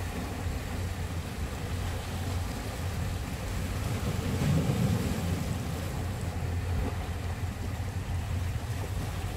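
Small waves washing against shoreline rocks, with wind rumbling on the microphone; a steady low rush that swells briefly about halfway through.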